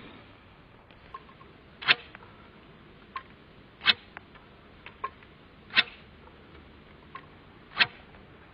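Boilie throwing stick swung again and again, a sharp whoosh about every two seconds, four in all. A fainter click comes a little before each swing.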